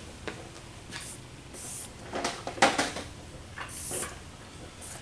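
Light knocks and clicks with a few short scratchy swishes, the loudest knock a little past halfway: charcoal and drawing materials being handled at the easel.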